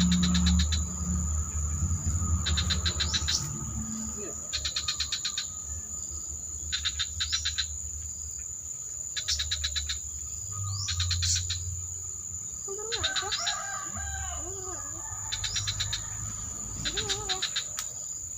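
Bird-lure call played on a small MP3 player: short bursts of rapid, high chattering trills repeating about every two seconds. A steady high insect whine runs underneath, and a few lower wavering calls come in past the middle.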